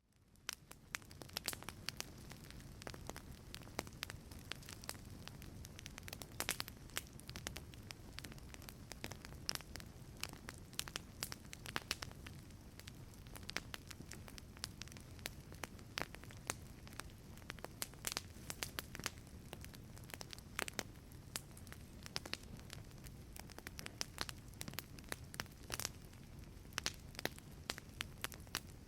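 Wood fire crackling in a fireplace: a steady low rumble of flames with frequent sharp pops and snaps of burning logs, fading in over the first second.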